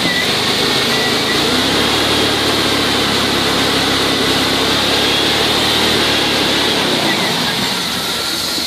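2001 Dodge Ram 1500's engine idling steadily under the open hood, with a steady high hiss over a low hum. The freshly replaced alternator is charging at about 14.5 volts.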